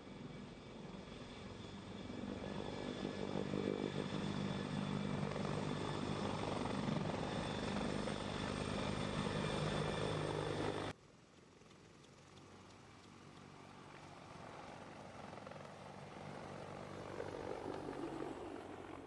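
Sikorsky CH-53K King Stallion heavy-lift helicopter's rotors and GE38 turboshaft engines as it flies low and close past, loudest from about three to ten seconds in. After an abrupt cut about eleven seconds in, it is heard more faintly from a distance, growing louder toward the end.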